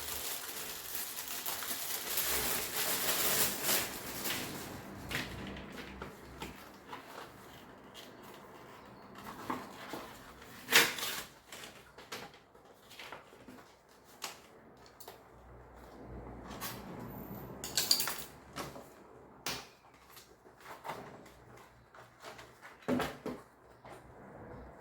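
Indoor handling noises: a rustle for the first few seconds, then scattered knocks and clicks of objects being moved and set down, the sharpest about eleven and eighteen seconds in.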